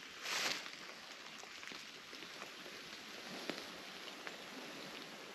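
Raindrops pattering steadily on fallen leaves in the woods, with scattered faint ticks of single drops. A short louder rustle of noise comes about half a second in.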